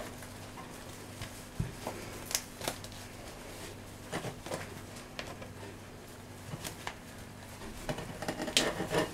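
Knife and hands working a wood pigeon carcass on a table, cutting into the breast cavity to get at the heart: scattered faint clicks and scrapes over a low steady hum.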